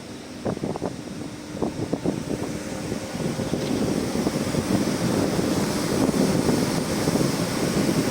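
Excavator engine running with a steady hum, a few short clanks in the first two seconds, then the engine noise grows louder and rougher from about three seconds in as the machine works.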